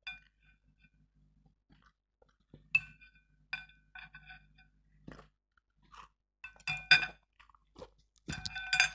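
Chopsticks clinking and scraping against a ceramic bowl while the last noodles are picked up. Each tap rings briefly, with a few near the start and a quick cluster near the end, and chewing in between.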